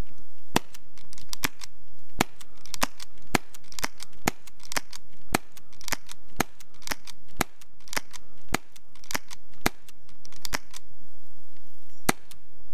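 Rapid single shots from two suppressed non-blowback airsoft pistols, an ICS BLE-PM2 Makarov running on CO2 and an MK23, about two to three sharp cracks a second with a pause of about a second near the end. The Makarov is the slightly louder of the two.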